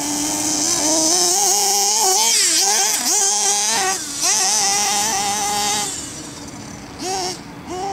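Redcat Hurricane XTR nitro buggy's engine running at high revs, its pitch rising and falling with the throttle. The pitch dips and climbs back about two and a half seconds in, and the sound grows quieter after about six seconds.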